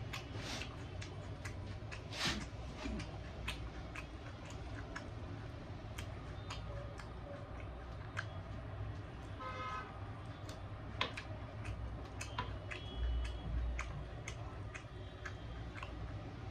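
A person eating chicken curry with roti by hand: chewing with many scattered sharp clicks and smacks over a steady low hum. A short horn-like toot sounds about nine and a half seconds in.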